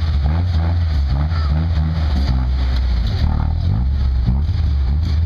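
Engines of lifted off-road trucks running in low-speed mud crawling, a deep steady rumble whose revs rise and fall.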